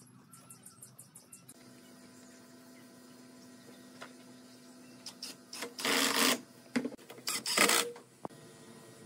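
Cordless impact driver driving screws into a wooden frame in short loud bursts, the two longest about six and seven and a half seconds in, with a few shorter ones around them. Before that there is only faint ticking and a low steady hum.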